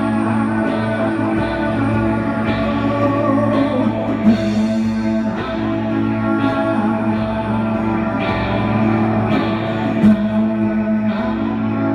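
Live rock band playing with steady acoustic guitar strumming, another guitar, and a man singing. A couple of louder accents come about a third of the way in and near the end.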